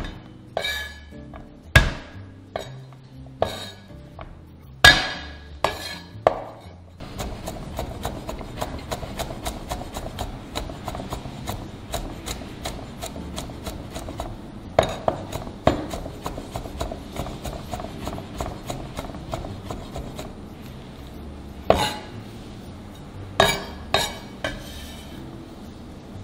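Chinese cleaver chopping garlic on a wooden cutting board. A few separate heavy strikes come first, then a long run of quick, even mincing strokes, then a few hard knocks near the end.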